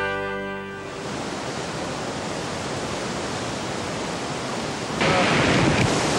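Music fades out in the first second, giving way to the steady rushing of whitewater river rapids, which grows louder about five seconds in.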